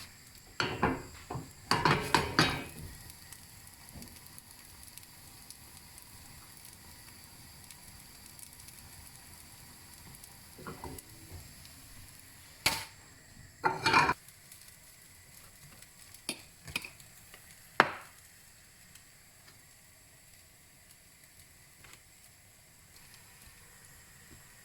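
Pancake cooking in a hot oiled frying pan with a faint sizzle. A metal utensil clatters against the pan several times: a burst of knocks about a second or two in, then a few scattered single knocks later on.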